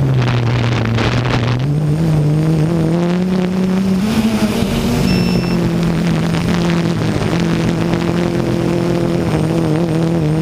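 Hexacopter's electric motors and propellers droning steadily, the pitch stepping up and down as the motors work against gusty wind. Wind buffets the microphone near the start and again about four seconds in.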